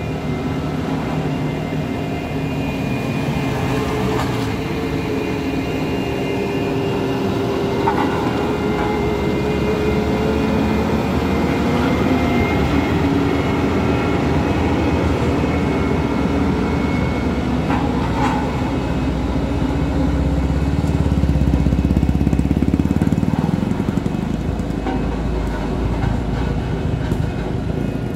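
Heavy diesel truck engine labouring under load on a steep climb, a continuous rumble whose pitch drifts slightly. It swells louder about two-thirds of the way through, then eases back.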